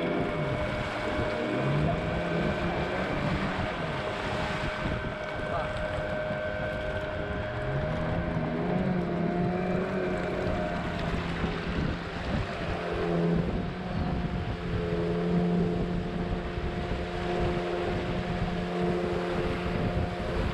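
Longboat outboard motor running under way, its note dipping briefly near the start and climbing again about eight seconds in, with wind on the microphone and water rushing past the hull.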